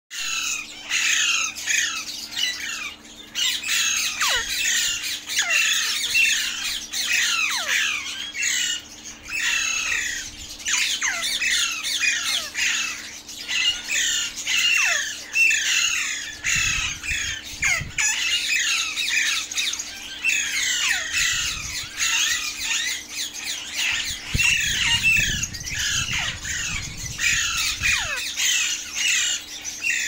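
A flock of Alexandrine parakeets calling: a dense, continuous chorus of harsh squawks and screeches, with some calls sliding down in pitch. A low rumble comes in twice, about halfway through and again near the end.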